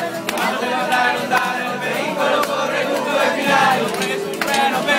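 Many voices singing a song together, with an acoustic guitar.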